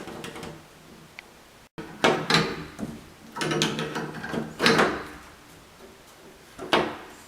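Metal rattles and scrapes of a shower valve sleeve being fitted over the stem and screwed down onto the valve body, in several separate bursts with a short sharp knock near the end.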